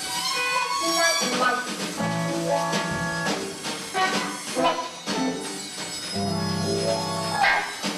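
Orchestra with electric guitar playing a live film score: a run of short pitched notes and chords, with a low held chord near the end.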